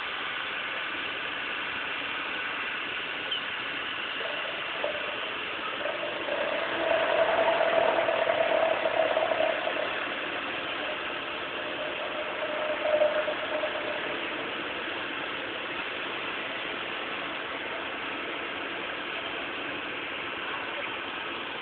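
Hitachi 210 hydraulic excavator's diesel engine running, with the engine and hydraulics loading up into a louder steady tone from about seven to ten seconds in and again briefly around thirteen seconds, as the machine works to climb onto a trailer truck.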